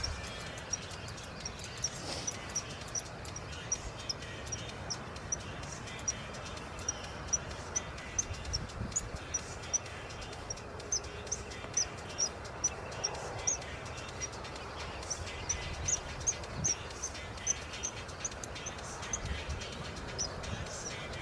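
A small bird calling one short, high note over and over, about two a second, against a steady outdoor hiss.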